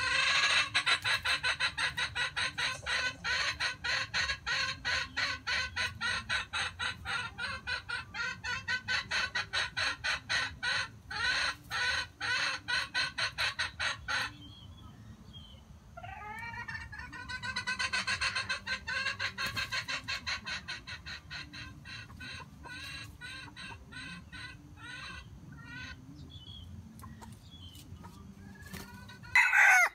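Chicken clucking in a rapid, even run of several calls a second for about fourteen seconds, then after a short pause a second, softer run that fades away. A single sharper, louder call comes just before the end.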